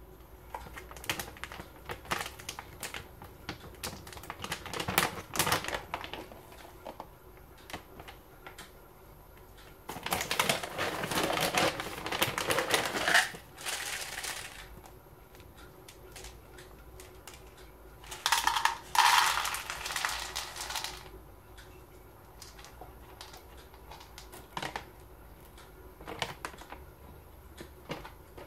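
Crinkling and rustling of a plastic cat-food bag as it is handled and opened, with many small clicks. There is a long loud stretch of rustling about ten seconds in, then dry kibble rattles into a plastic bowl for a couple of seconds about eighteen seconds in.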